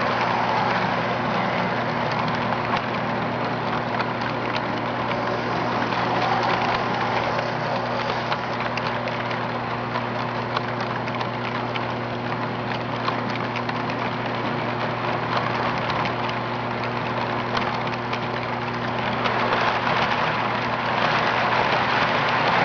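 HO-scale model trains running on the track: a steady electric hum under a continuous fine clatter of small clicks from the wheels rolling over rail joints and track.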